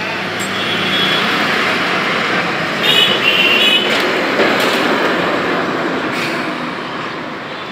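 Street traffic: a passing vehicle's noise swells to a peak midway and then fades, with a few short high beeps around three seconds in.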